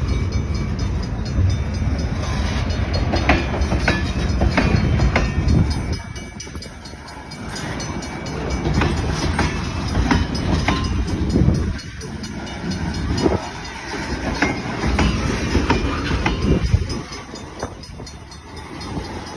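Freight train of potash cars rolling past, wheels clacking over the rail joints with a steady low rumble that eases off briefly twice.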